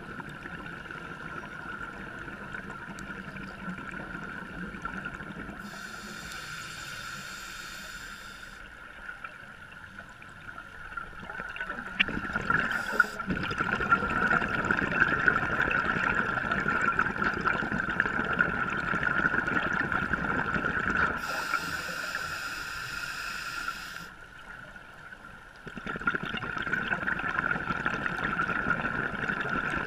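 Underwater scuba breathing heard through a camera housing: a regulator hisses on two inhalations, about six and twenty-one seconds in, and exhaled bubbles gurgle between them.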